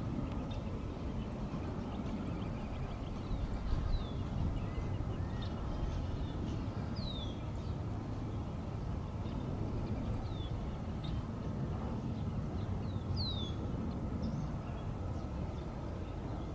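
Outdoor ambience: a steady low rumble, with a small bird giving short, high, falling chirps every second or two.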